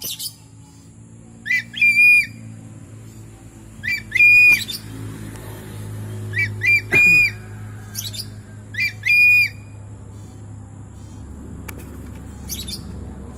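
Changeable hawk-eagle calling: about five shrill, whistled phrases, each of two or three short notes ending in a longer held note, repeated every two to three seconds. The last call near the end is fainter.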